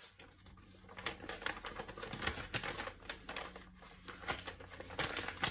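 Light, irregular clicks and taps, several a second, from hands at work, with one sharper click near the end.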